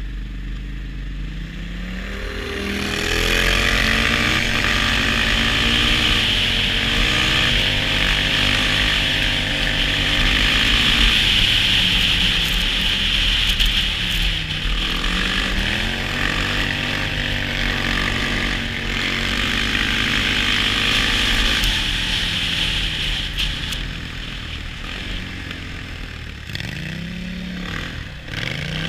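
ATV engine running under load, its revs rising and falling as the quad speeds up and eases off, with two clear drops in revs, about halfway through and again near the end, each followed by a climb. A steady rushing hiss rides over the engine while the quad is moving fast.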